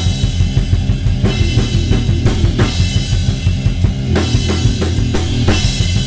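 Acoustic drum kit played in a fast, dense groove: rapid kick-drum strokes under snare hits and cymbals, with bright cymbal crashes a little over two seconds, about four seconds and about five seconds in.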